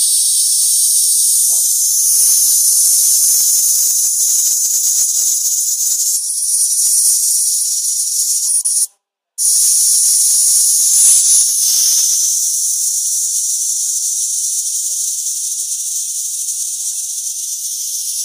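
High-voltage electric arc hissing steadily between a screwdriver tip and an alligator clip, with stretches of crackling. It cuts out for about half a second around nine seconds in, then strikes again.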